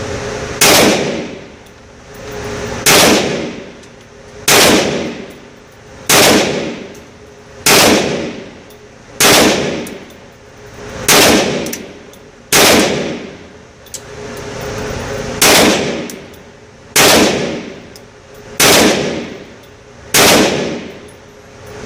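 KelTec PMR-30 .22 Magnum pistol firing Hornady 30-grain V-Max rounds, about twelve single shots at a steady pace of one every second and a half or so, each followed by a ringing tail.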